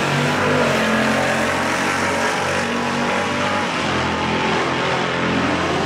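Two drag-racing cars launching off the start line and accelerating hard down the drag strip, their engines at full throttle.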